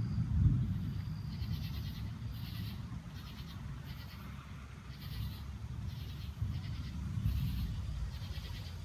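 Low rolling rumble of thunder from a nearby lightning storm, loudest about half a second in and then rumbling on. Insects keep up a pulsing high chirp, about one pulse a second, over it.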